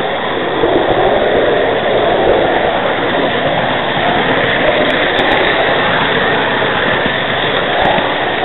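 Model train running along its track, heard from a camera riding on the train: a loud, steady rumble of wheels on rail and motor noise.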